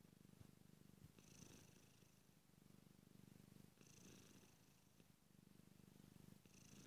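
Domestic cat purring steadily and faintly, the purr swelling and easing with its breathing about every two and a half seconds.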